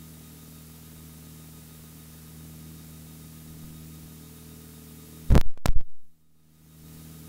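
Steady drone of a Piper Archer's four-cylinder engine in climb, heard through the cockpit intercom feed. About five seconds in, a short burst of loud clicks cuts in, the sound drops out for a moment, then the drone returns.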